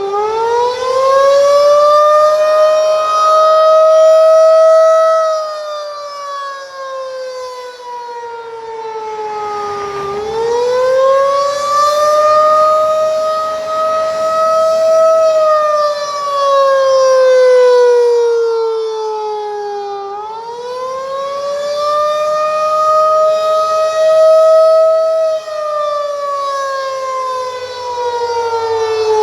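Federal Signal 2001-DC outdoor warning siren sounding the attack signal: a single wailing tone that rises, holds briefly at the top, then slowly falls, repeating about every ten seconds.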